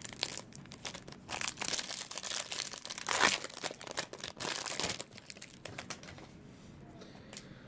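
A baseball card pack wrapper being torn open and crinkled by hand, a dense crackling that is loudest about three seconds in, then quieter handling near the end.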